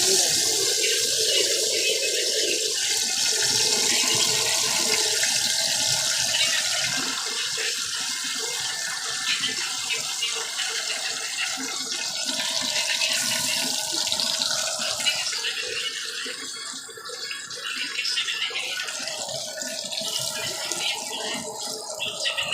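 Fish frying in hot oil: a steady, crackling sizzle that slowly fades over the stretch.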